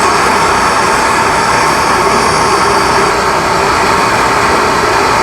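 A gas torch burning with a loud, steady hiss, heating a rusted, seized exhaust bolt to free it.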